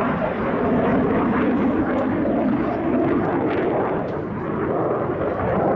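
Loud, steady jet noise from an F-16 fighter flying a display pass, easing slightly about four seconds in and building again near the end.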